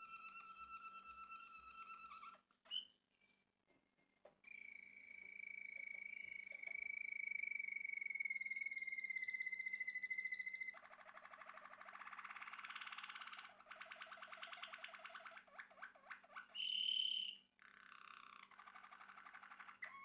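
Male Malinois (Waterslager) canary singing. Long held whistle-like notes slide slowly lower, broken by a pause of about two seconds near the start. Fast rolling trills follow in the second half, with one short, loud high note near the end.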